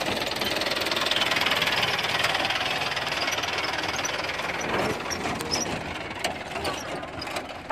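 A pickup truck's engine running as it drives over a rough, rutted dirt track, with a dense rumble of motor and road noise. Scattered knocks and rattles come in from about five seconds in.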